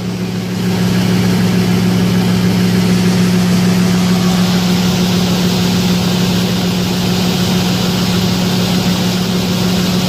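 Straight-piped combine engine running steady at working speed while the unloading auger empties soybeans into a truck: a loud, constant drone with a low hum, growing louder about a second in.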